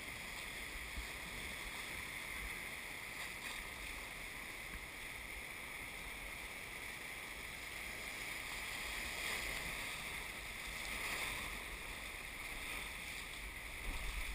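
Whitewater of a muddy river rapid rushing and churning around an inflatable raft: a steady hiss of water that swells a little partway through, with a few low thumps near the end.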